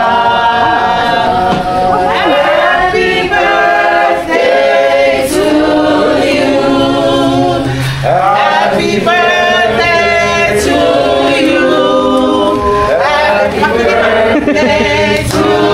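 A group of people singing together without instruments, many voices at once, carrying on without a break.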